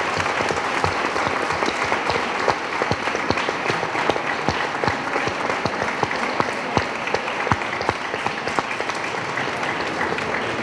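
Audience applauding, many hands clapping at once in a dense, steady patter.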